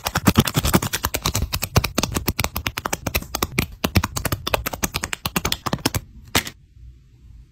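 Sticker sheets crackling and clicking as stickers are lifted off their backing with tweezers: a quick, uneven run of crisp clicks. About six and a half seconds in the clicking stops, leaving a faint low hum.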